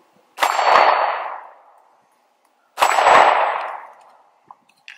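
Two 9mm shots from a Sig Sauer P320 pistol about two and a half seconds apart, each followed by a steel target ringing as it is hit.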